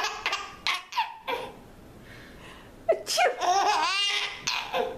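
High-pitched laughter at a sneeze: a few short bursts, a pause, then a sharp burst just before three seconds in sets off a longer run of laughing.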